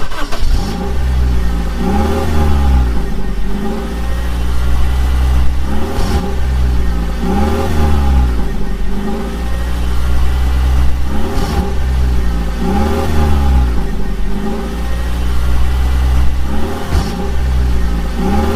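Engine sound rising and falling in pitch, the same rev repeating about every five and a half seconds like a looped vehicle sound effect.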